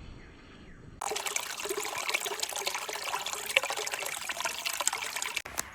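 Water trickling, a steady dense patter of small splashes that starts abruptly about a second in.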